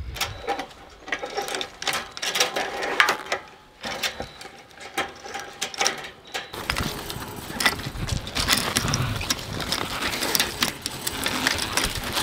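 Ratcheting chain-type fence stretcher being worked by hand: a run of irregular metal clicks and chain links clinking as the ratchet walks along the chain, tightening woven wire fence.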